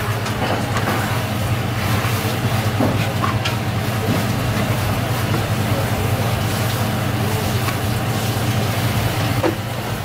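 A steady, low machine hum over a constant noise, with a few faint taps.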